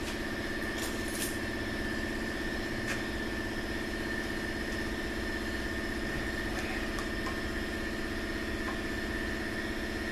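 Shop air compressor running steadily, with a few light clicks of parts being handled.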